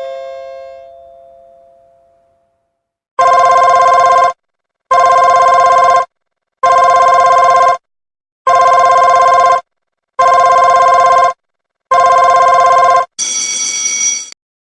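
A two-note doorbell chime dying away, then a home telephone ringing six times, each electronic ring about a second long, as the doorbell alert comes through on the phone. Near the end, a brief higher-pitched electronic alert sounds.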